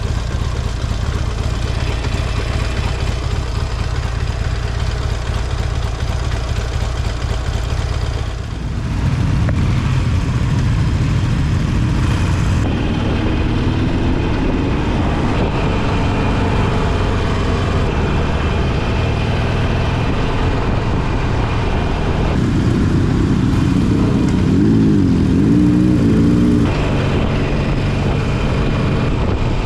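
Motorcycle engine running on the road in several short clips cut together, the sound changing abruptly at each cut; in one stretch the engine note wavers up and down as the throttle is worked.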